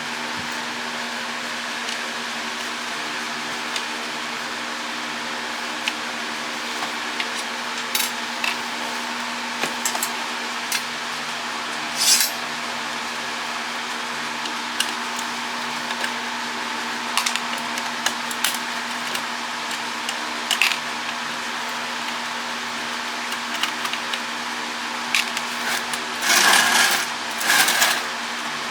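Scattered clicks, taps and small metallic clatter of hand tools and loose parts as a plastic router case is taken apart, over a steady background hum. Near the end come two louder rasping scrapes, each lasting about a second.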